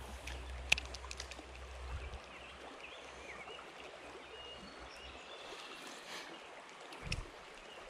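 Shallow trout stream flowing and rippling steadily, with a sharp click a little under a second in and a low thump near the end.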